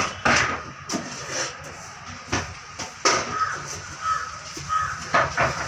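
Paintbrush dragged over bare wood, laying on wood primer: a run of short scratchy strokes, one every half second to a second.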